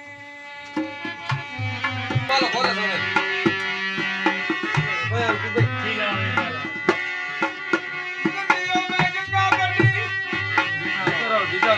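Rajasthani folk music interlude: a hand drum playing a steady rhythm under sustained melodic instrument lines, the drum entering about a second in.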